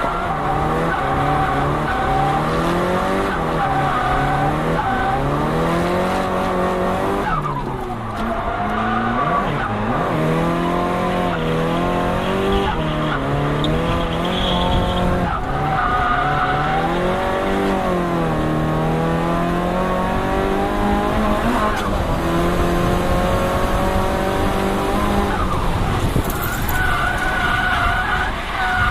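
Turbocharged Nissan Silvia S15 engine with an HKS GTIII turbo kit, heard on board while driven hard. The engine note climbs under acceleration and drops back again and again at shifts and lifts, with brief dips around eight seconds in and near the end.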